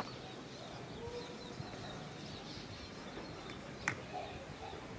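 Faint birds chirping over steady outdoor background noise, with one sharp click about four seconds in.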